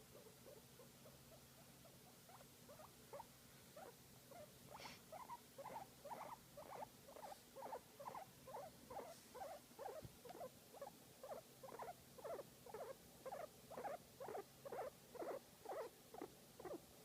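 Guinea pig making a rhythmic series of short squeaks, about two and a half a second, growing louder from about two seconds in, while being massaged.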